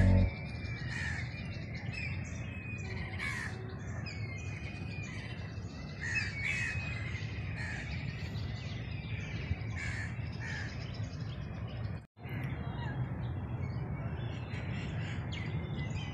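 Birds calling repeatedly in short calls over a low, steady background rumble. The sound drops out for a moment about twelve seconds in.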